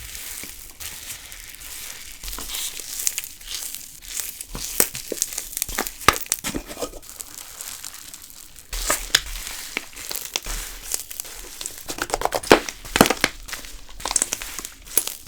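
Fluffy 'Taiwan castella' slime being squeezed and pressed by hand, giving a dense, irregular fizzing crackle of tiny pops, busier and louder from about two-thirds of the way through.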